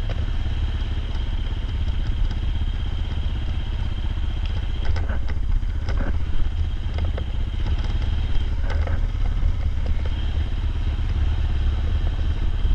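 A vehicle engine running steadily with a low rumble, with a few faint knocks and clicks over it.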